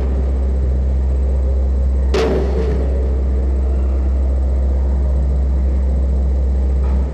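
A loud, steady, very deep electronic bass drone from the jam, cutting off suddenly near the end, with one sharp noisy percussive hit about two seconds in.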